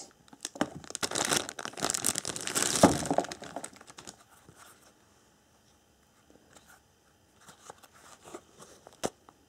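A clear plastic bag crinkling and rustling as a sheathed knife is slid out of it, for about four seconds. Then near quiet, with a few faint handling taps near the end.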